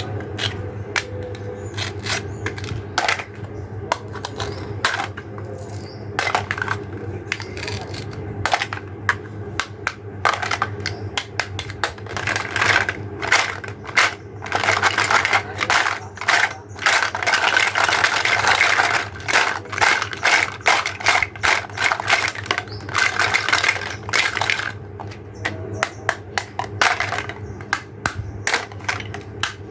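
Hard plastic toy pieces clicking, tapping and clattering against each other and a surface, with a dense stretch of rapid crackling clicks through the middle.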